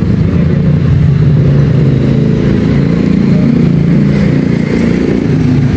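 Steady low drone of motor traffic, with faint high-pitched chirps joining about four seconds in.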